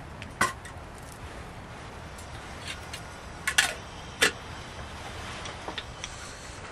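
Sharp metal clinks of a small steel cooking pot and its wire bail handle knocking against a Bushcraft Essentials twig wood stove as the pot is set down on it to boil water for coffee: one strike, then a quick double and a loud single about a second later, with a few small ticks near the end.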